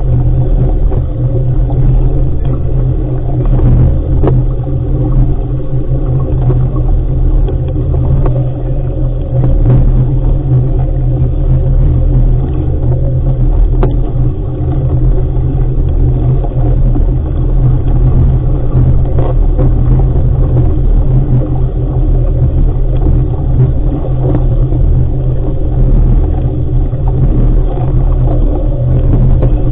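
Wind buffeting the microphone aboard an RS500 sailing dinghy under sail: a loud, steady low rumble.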